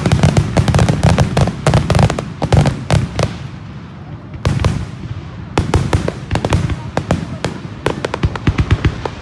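Aerial fireworks going off in rapid succession, many sharp bangs and crackles over a deep rumble. The barrage eases about three seconds in and picks up again near five seconds.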